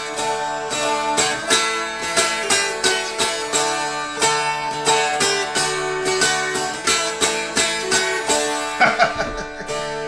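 Mountain dulcimer playing a quick plucked melody, about three notes a second, over a steady drone.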